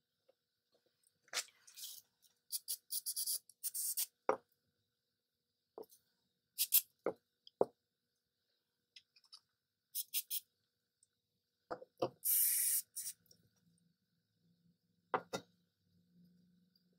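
Scattered clicks, taps and scrapes of an old adjustable wrench and a thin steel pin being handled on a wooden bench, with several short hissing bursts, the longest lasting under a second a little past two-thirds of the way through.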